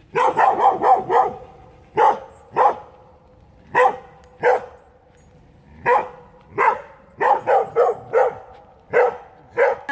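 A dog barking repeatedly in short, sharp barks: a quick run of about five at the start, then single barks and pairs every second or so, and another quick run near the end.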